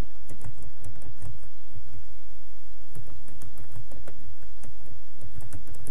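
Typing on a computer keyboard: quick runs of key clicks in two spells, with a pause of about a second and a half in the middle.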